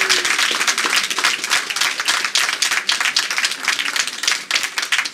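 Applause from a crowd of people, many hands clapping fast, dying down near the end.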